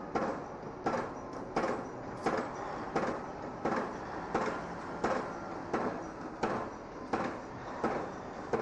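Pile driver hammering at a steady pace, one sharp blow about every 0.7 seconds, over a steady background noise.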